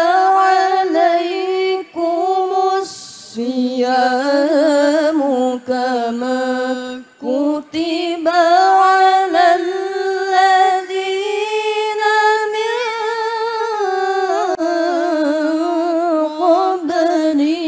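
A young woman's voice chanting Quran recitation (qiroah) into a microphone, in long, melismatic phrases with wavering, ornamented pitch and brief pauses for breath between them.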